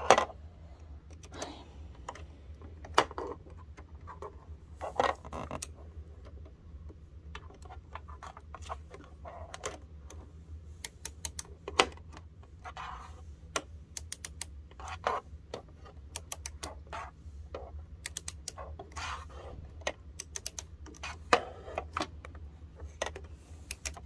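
Irregular small metal clicks and taps of a screwdriver turning the needle-plate screws on a sewing machine and of the metal parts being handled, over a steady low hum.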